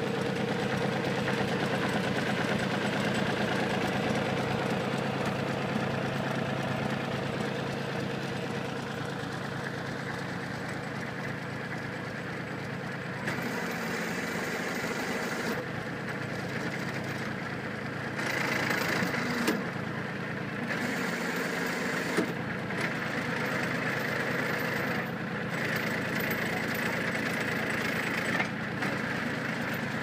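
Small tractor's engine running steadily, driving the hydraulics of a BH6600 backhoe attachment. About halfway the sound changes as the backhoe is worked: a higher whine comes and goes twice, with a few sharp knocks.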